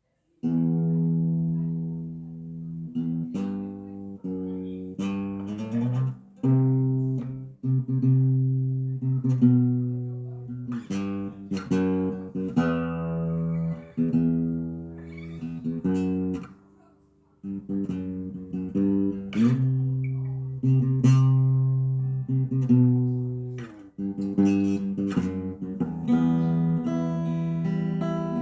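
Acoustic guitar played in percussive fingerstyle: plucked bass and melody notes ringing over sharp knocks on the guitar body, with a brief pause a little past the middle.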